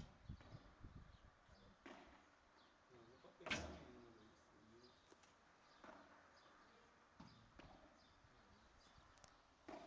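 Padel rally: a ball struck back and forth with solid paddles, heard as a series of faint, sharp pops one to two seconds apart, the loudest about three and a half seconds in.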